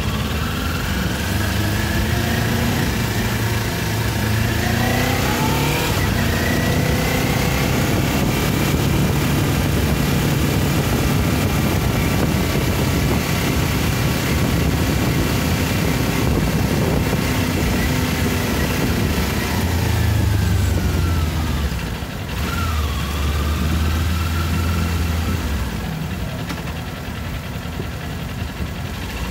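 Kawasaki Ninja 400 parallel-twin engine heard from the rider's seat, pulling away from a stop with revs rising, then running steadily at town speed. Revs fall away about two-thirds through, with a brief dip and pick-up like a gear change, and the engine settles lower and quieter near the end as the bike slows.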